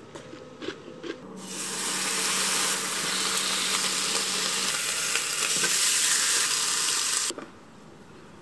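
Meat, onion and green pepper frying in a small rectangular pan, sizzling hard as sauce is poured over them. The sizzle starts about a second in after a few light clicks and cuts off suddenly near the end.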